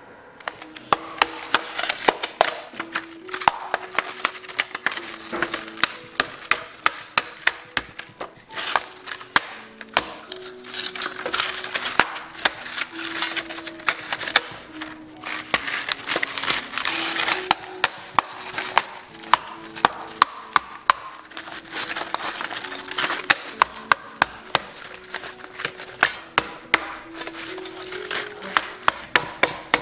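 A hardened slab of honeycomb toffee being smashed with a mallet in a pan: repeated sharp cracks and knocks, several a second, with brittle shards crunching and rattling between blows. Light background music plays under it.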